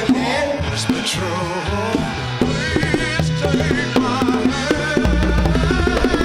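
Music with hand-drum percussion, a bass line and a wavering melody. A heavier bass and drum beat comes in about five seconds in.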